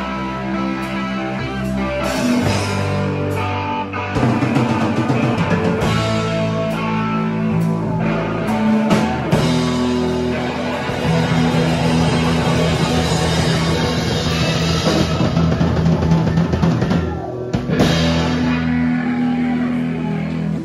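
Rock band playing live: drum kit, distorted electric guitars and bass guitar, loud and continuous.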